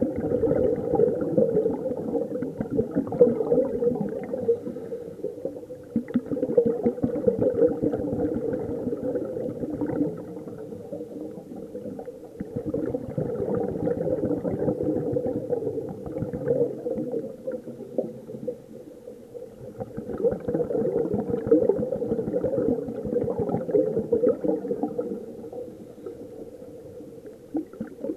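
Exhaled bubbles from a scuba regulator bubbling underwater, in stretches of several seconds with quieter gaps between breaths.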